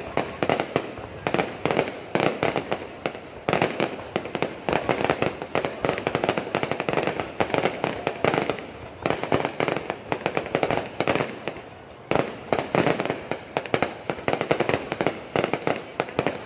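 Fireworks going off in a dense, continuous volley of sharp bangs and crackles, easing briefly about eight and twelve seconds in.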